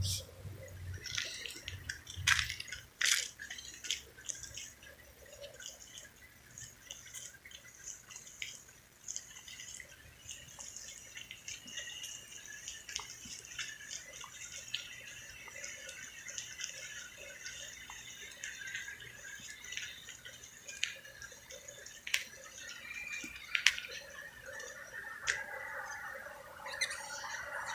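Marker tip squeaking and scratching across a surface in short strokes, with scattered sharp clicks.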